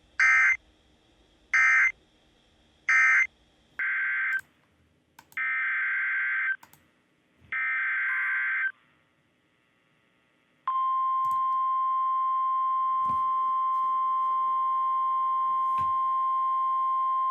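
Emergency Alert System data tones on NOAA Weather Radio. First come three short screeching bursts about 1.5 s apart, marking the end of the previous warning. Then three longer bursts of the header for the next warning, and about 11 s in the steady 1050 Hz alert tone starts and holds.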